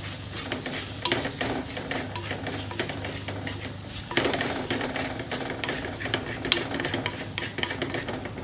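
Wooden spatula stirring and scraping a thick onion-tomato masala around a hot pan, in irregular strokes over a light sizzle as the masala fries.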